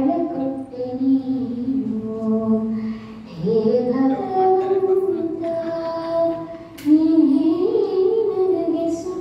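High voice singing a slow melody with long held notes and gliding pitch, pausing briefly about three seconds in and again near seven seconds.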